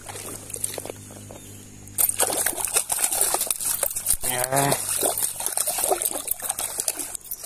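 A small mojarra thrashing and splashing in shallow stream water as it is released, starting suddenly about two seconds in. Before that, only the faint trickle of the stream.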